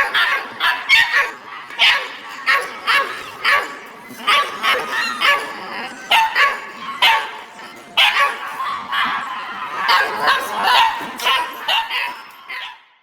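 Dog barking repeatedly, a run of short barks about two a second, fading out at the end.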